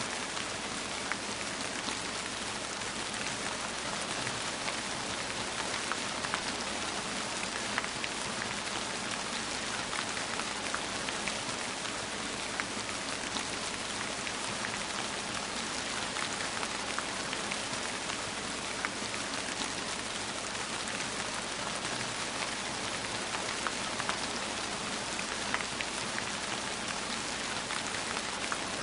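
Steady rain falling on a surface, a dense even hiss with many individual drops pattering through it.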